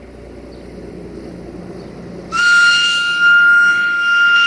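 Air whistle of a CFR Class 60 (060-DA) diesel-electric locomotive blowing one long, high, steady note that starts suddenly about two seconds in and holds on. Before it, the approaching locomotive's diesel engine running, growing louder.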